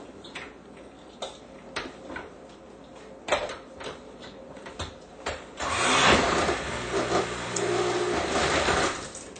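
A few scattered clicks and knocks, then, about six seconds in, a kitchen blender's motor starts and runs loudly for about three seconds before stopping.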